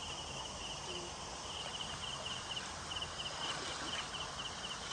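An insect chirping in short trills of rapid pulses, repeated over and over, over the steady hiss of fast-flowing floodwater.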